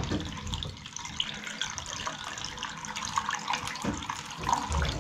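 Water running from a chrome bath mixer tap in a thin stream and splashing into the bath.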